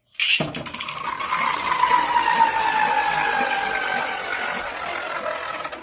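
Beyblade Burst spinning top launched with a sharp rasp of its launcher, then whirring on the floor of a plastic stadium, its tone falling slowly as the top loses speed.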